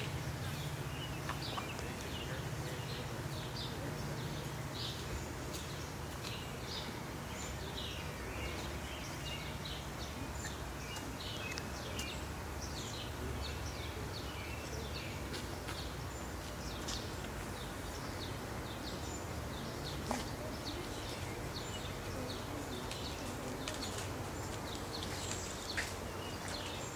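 Small birds chirping and calling, many short high notes throughout, over a steady low outdoor background rumble. Two brief clicks, about twenty and twenty-six seconds in.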